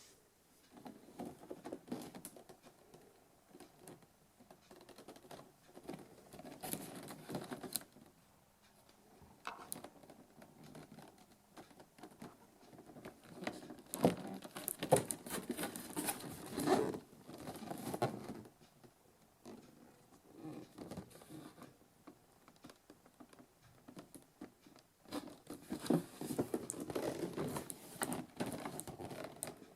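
A cardboard figure box being handled and opened: irregular rustling, scraping and crinkling with sharp clicks, coming in bursts that are loudest about halfway through and again near the end.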